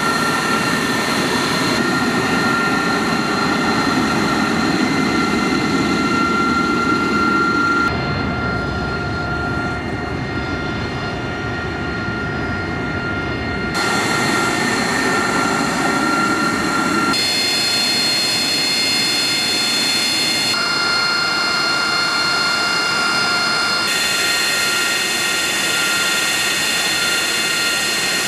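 AV-8B Harrier II's Rolls-Royce Pegasus turbofan running as the jet taxis: a steady rumble with a high whine. The sound changes abruptly several times.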